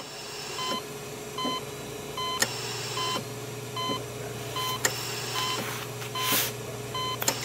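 Electric hair clippers buzzing as hair is shaved from a scalp, the buzz growing stronger about two and a half seconds in. Over it, a short electronic beep repeats a little more than once a second.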